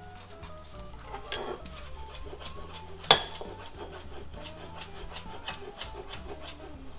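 Quick repeated rasping strokes of kitchen food preparation, about three to four a second, with two sharper knocks about one and three seconds in. Soft background music runs underneath.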